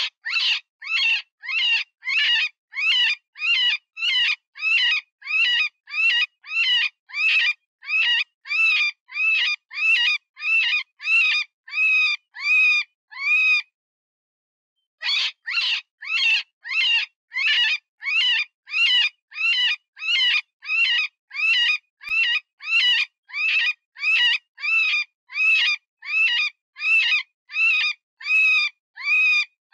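Cottontail rabbit distress call: high, pitched squealing cries repeated about twice a second, each dropping in pitch at its end. The cries pause for about a second and a half near the middle, then start again. It is the wounded-rabbit sound used to lure predators such as coyotes and foxes.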